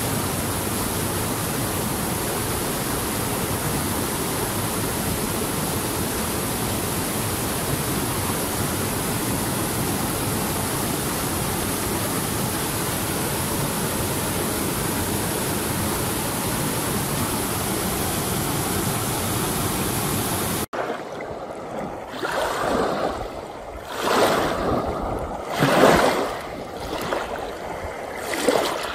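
Mountain stream rushing over granite boulders, a steady even roar of water. About two-thirds of the way through it cuts off abruptly to small waves washing in on a pebble shore, four swells a couple of seconds apart.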